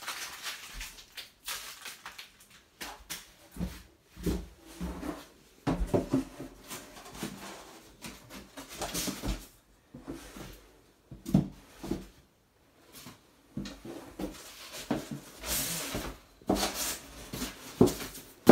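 Irregular knocks, bumps and short rustles of equipment being handled and unpacked, with a few louder rustling bursts.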